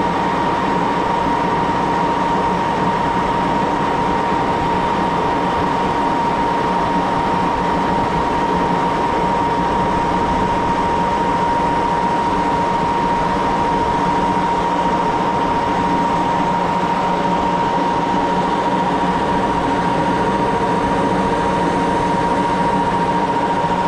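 1941 Axelson gear-head lathe running steadily, with a constant high-pitched whine over a steady mechanical hum.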